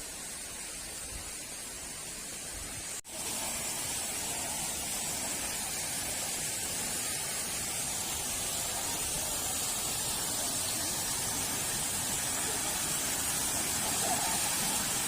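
Steady rush of falling water from a waterfall. A sudden break about three seconds in, after which the rush is louder and gradually grows.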